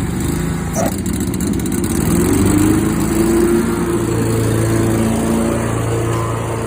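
Skag commercial mower running, the engine speeding up between about two and three and a half seconds in and then holding steady. It sounds normal, the way a healthy mower should. A short knock about a second in.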